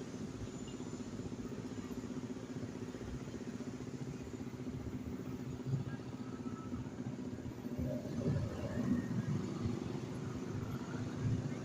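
A motor vehicle's engine running steadily, with louder passing-vehicle noise from about eight seconds in.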